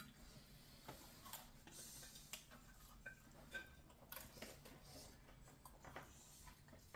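Near silence broken by faint, scattered small clicks and taps of people eating at a table, plates and fried food being handled.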